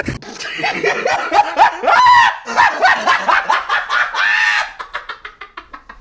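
Comedy laughing sound effect: a high-pitched voice in a fast, continuous run of short laughs that thin out and fade near the end.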